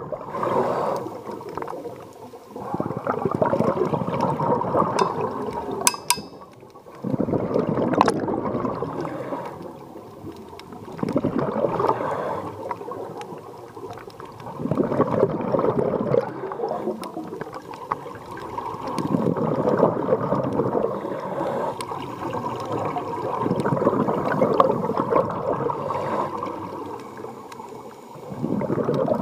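Scuba diver's exhaled bubbles from the regulator, heard underwater: a burst of bubbling every four seconds or so, with quieter gaps between as the diver breathes in.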